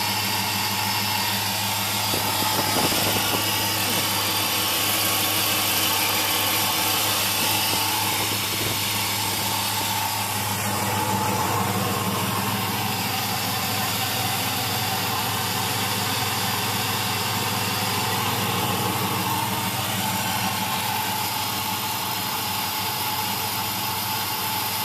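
1999 Dodge Ram's 5.9-litre V8 idling steadily while it warms up after a cold start, running evenly with no sign of a misfire.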